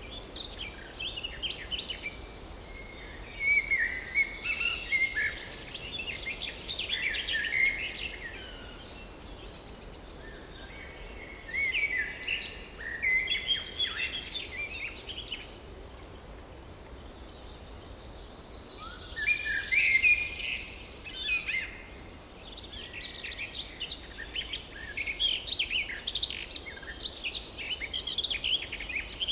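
Forest songbirds singing, in bouts of quick chirps and trills with short lulls between, over a steady faint background hiss.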